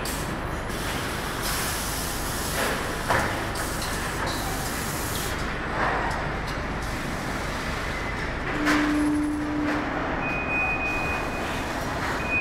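Pneumatic bag palletizer at work: steady machinery noise with several short hisses of compressed air being vented. A low steady hum sounds for about a second just before the end, followed by a brief high steady tone.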